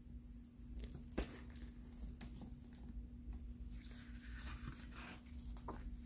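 Hardcover picture book being handled and its front cover opened: faint paper and cover rustling with a few soft clicks, a sharper one about a second in and more rustling near the end, over a faint steady hum.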